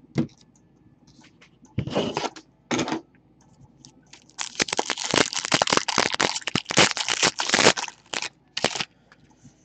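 Trading-card pack wrapper crinkling and crackling as it is torn open, a dense run of crackles lasting about three seconds from around four and a half seconds in. Before it come a few short rustles of cards and packs being handled, and two brief crinkles follow near the end.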